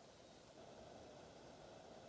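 Near silence: a faint, steady background hiss with no distinct sounds.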